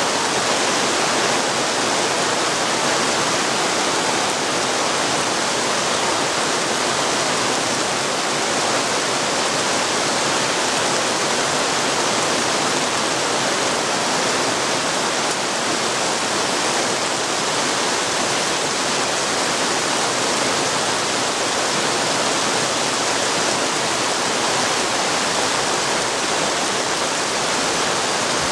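Heavy rain pouring down steadily, a dense even hiss with no let-up.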